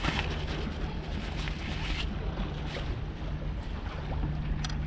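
Fabric rod bag rustling as a fishing rod is drawn out of it and handled. Under it runs a steady low engine hum.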